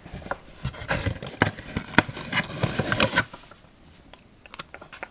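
Blind-box packaging being handled close to the microphone: dense rustling and clicking, with one sharp click about two seconds in. It quiets after about three seconds, leaving a few light taps.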